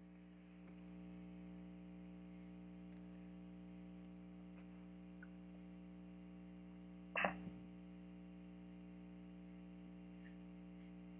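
Faint steady hum, broken once about seven seconds in by a short, sudden sound.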